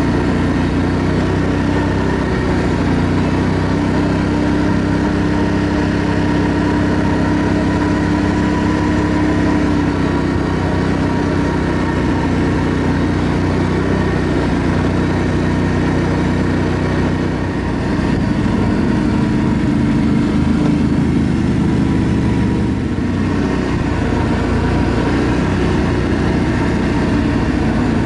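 ATV engine running steadily under way, with a steady hum over a rushing noise and small shifts in pitch as the throttle changes; the level dips briefly about 17 seconds in.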